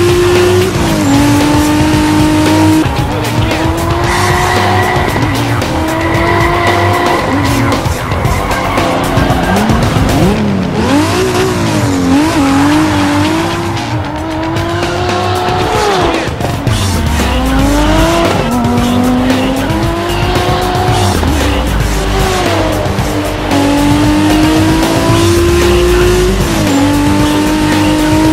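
Dubbed racing-car sound effects: a car engine climbing in pitch and dropping again several times, as through gear changes, with tyres squealing in skids, over background music.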